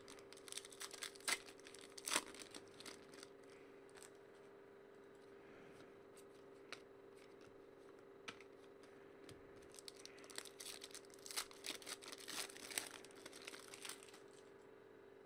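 Trading cards and their pack wrappers being handled: crackling, rustling bursts in the first few seconds and again about ten seconds in, over a faint steady hum.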